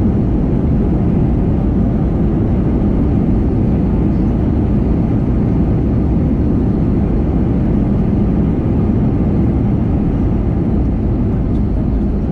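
Steady, loud, low rumble of an Airbus A320's engines and airflow, heard inside the cabin.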